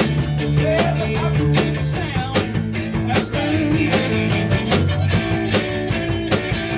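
Rock band playing: a steady drum beat with cymbal hits about three to four a second, over bass guitar and guitars.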